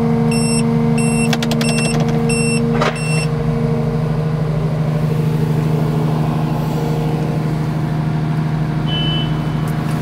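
Atlas 160 W wheeled excavator's overload warning beeping about twice a second while the arm is raised, stopping about three seconds in with a knock. Under it, the Deutz diesel engine and hydraulics run steadily.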